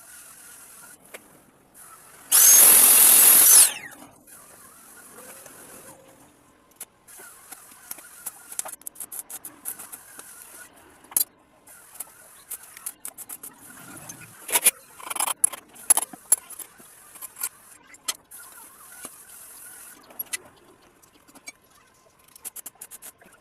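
A metalworking power tool working on a broken screwdriver in one loud, rough burst of about a second and a half, followed by scattered light clicks, taps and scrapes of metal being handled.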